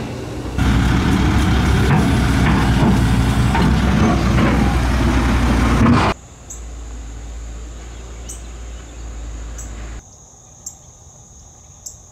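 Caterpillar 312C hydraulic excavator's diesel engine working under load while the bucket scrapes and grinds through rocky red clay. About six seconds in this cuts off suddenly, leaving insects chirping steadily over a faint low hum, with a few sharp clicks.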